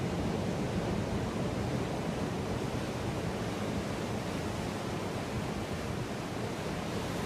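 Steady wash of ocean surf, an even rushing noise without breaks.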